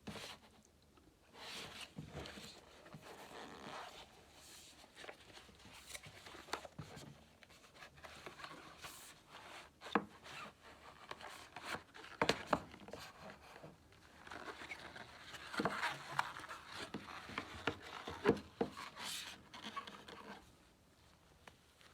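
Packaging of a pair of boxer briefs being handled and opened: irregular rustling, scraping and rubbing with scattered sharp clicks and snaps.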